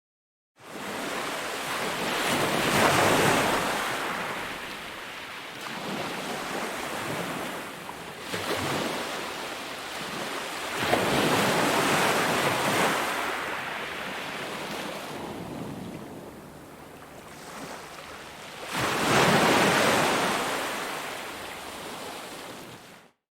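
Ocean waves breaking and washing in, swelling into three louder surges several seconds apart between quieter stretches of wash.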